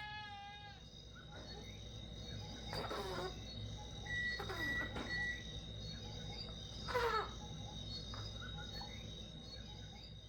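Crickets trilling steadily in an evening farmyard. A bleat trails off at the start, and three short downward-sliding animal calls follow, the last, about seven seconds in, the loudest.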